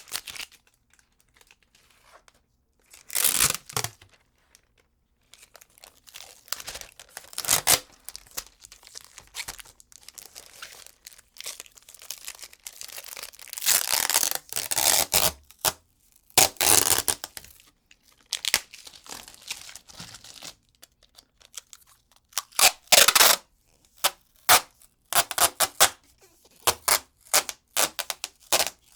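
Adhesive tape pulled off the roll and ripped, in repeated bursts of tearing, several longer pulls followed by a quick run of short rips near the end.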